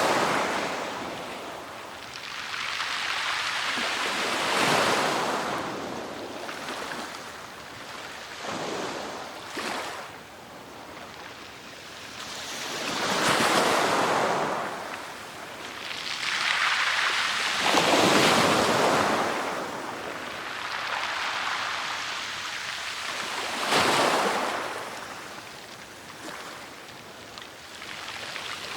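Sea waves breaking on a shore in repeated surges, each a swelling hiss that fades away, one every four to six seconds.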